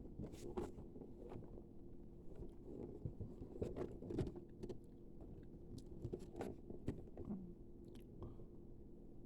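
Faint scattered clicks and crinkles of plastic action figures and their packaging being handled, over a steady low hum.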